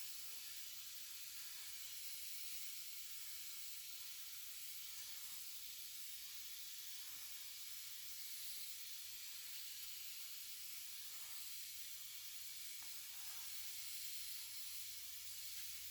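Faint steady hiss of background noise, with a few very faint soft sounds now and then.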